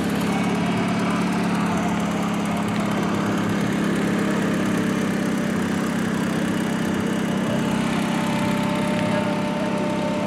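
Small engine of a giant high-wheel swing bike running steadily as the machine drives along, a constant, even hum.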